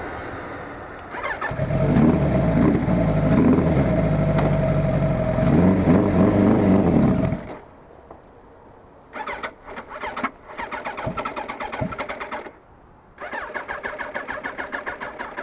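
1986 Kawasaki GPZ1000R's inline-four engine revving up and down, then dying suddenly about seven seconds in. The starter then cranks it in three bursts without it catching. This is the hot-engine fault being chased: the bike runs fine cold but falls on its face and shuts off once warmed up.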